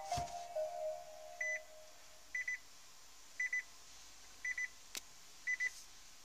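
Nissan LEAF's in-cabin warning chime repeating: a short, rapid electronic pip about once a second. It comes just after power-on, as the last note of the startup chime fades early on. A click comes at the start and another about five seconds in.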